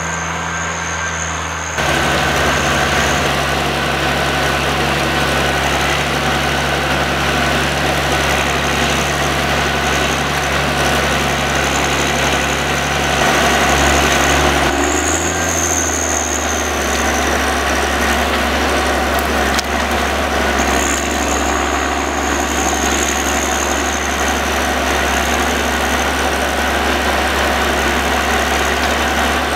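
John Deere 1110D forwarder's diesel engine running steadily under the machine's work, with a thin high whine over it. The sound steps up abruptly about two seconds in and shifts again about halfway through.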